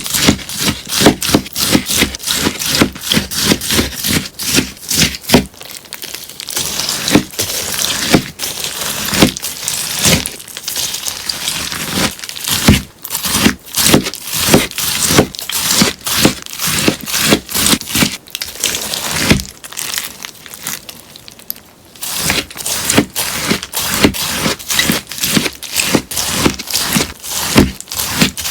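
Scissors cutting through a sponge in quick, crisp snips, about three a second, with a denser, more continuous rasping stretch in the first half and a brief lull about two-thirds through.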